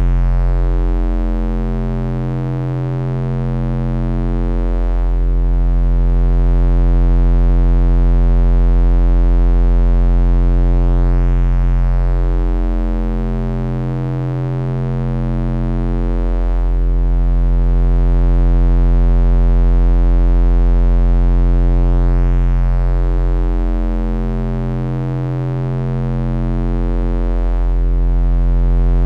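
Bass-boosted electronic drone: a deep, steady hum with a stack of higher tones above it, swelling and fading slowly about every eleven seconds, with a slow sweeping shimmer in the upper tones.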